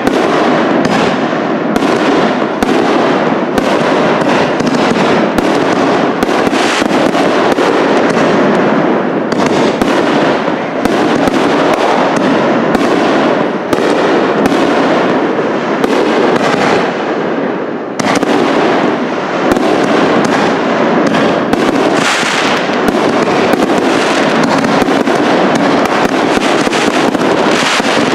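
Aerial firework shells bursting in rapid succession, their bangs running together into a loud, unbroken barrage.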